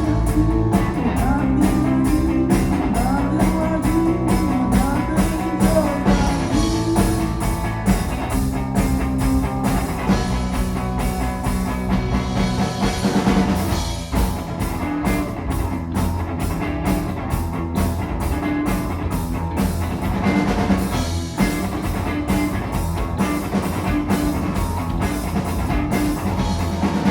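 Live rock band jamming: guitar, bass and drum kit playing together, with the drums keeping a steady beat throughout.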